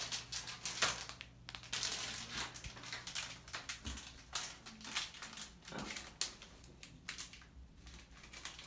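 Coffee and tea packets being torn open and crinkled by hand: a run of irregular rustles and crackles.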